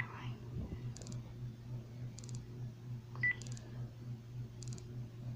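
Telephone call-progress tones as a call is placed and waits to be answered: a short high beep at the start and another about three seconds in, over a faint steady low hum.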